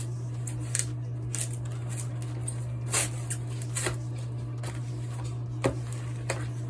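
Butter knife cutting and prying open a cardboard ammunition case, making scattered scrapes, taps and rustles over a steady low hum.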